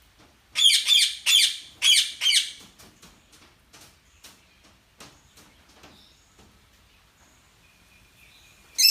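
A bird calling: a loud run of rapid, sweeping chirps in four or five quick bursts, then scattered softer chirps and clicks, and a short whistle and a sharp loud note near the end.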